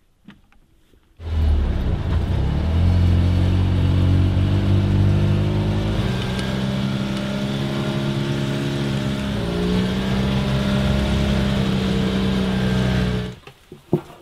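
Polaris side-by-side UTV engine running while driving along a trail. The engine note shifts pitch a couple of times as the speed changes. It starts abruptly about a second in and cuts off near the end.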